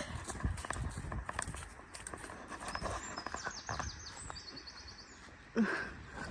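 Hurried footsteps on a forest path, a steady run of short crunches and knocks. About three seconds in, a bird calls with a quick series of high falling notes and then a short trill. Near the end there is one brief, louder sound.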